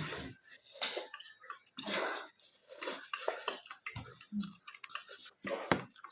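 Cutlery clinking and scraping on a dish in short, irregular strikes while food is eaten.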